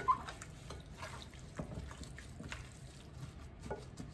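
Gloved hands mixing raw chicken pieces with oil and ground spices in a glass bowl, making soft wet squelches and small scattered clicks.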